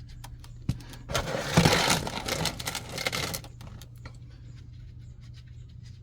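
Engine oil drain plug being taken out from under a BMW E90: a knock, then about two seconds of loud, dense clattering noise as the plug comes free and the oil starts out, before it settles to faint clicks.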